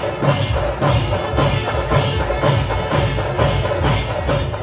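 Rhythmic percussion music with a steady beat of about two strokes a second.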